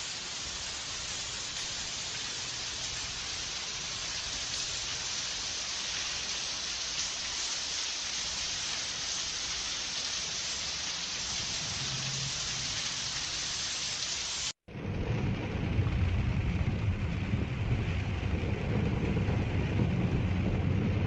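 Heavy rain hissing steadily. About two-thirds of the way through it cuts off abruptly and resumes louder, with a steady low rumble beneath the rain.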